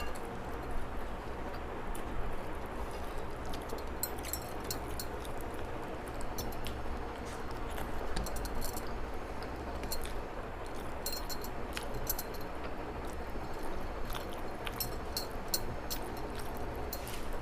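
Steady background noise with scattered small clicks and clinks, more of them in the second half.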